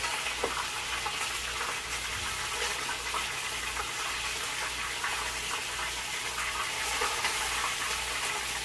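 Congo (patwa) fish half-frying in hot oil in a karahi, a steady sizzle, with a few faint scrapes of a slotted spoon as the pieces are lifted out.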